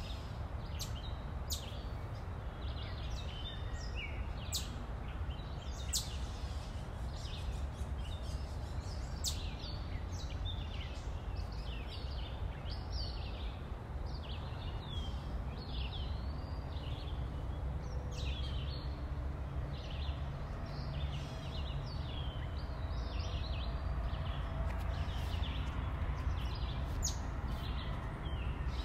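Many birds chirping and calling in quick short notes over a steady low rumble.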